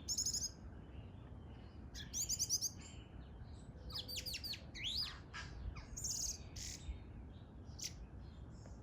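A bird singing: short bursts of quick, high chirping trills at the start, about two seconds in and about six seconds in, with sharp downward-sliding whistled notes and a rising note between them.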